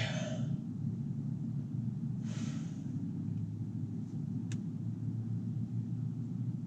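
Steady low rumble of a car's engine and road noise heard from inside the cabin, with a soft rustle about two seconds in and a faint click a couple of seconds later.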